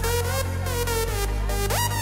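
Hardstyle electronic dance music: a held bass under a sustained synth lead, with a synth sweeping upward in pitch near the end.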